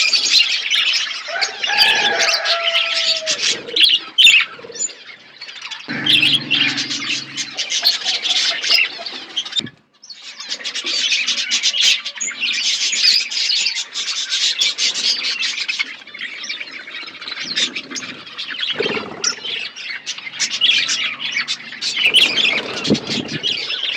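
A flock of small pet birds chirping busily, many voices at once, with the chatter breaking off for a moment about ten seconds in.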